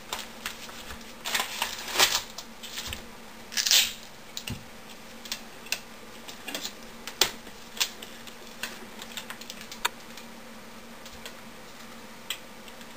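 Irregular clicks, taps and short rustles of a taped RC LiPo battery pack being taken apart by hand: cells, plastic connectors and wires handled and set down on the bench. The loudest rustles come about 2 and 4 seconds in.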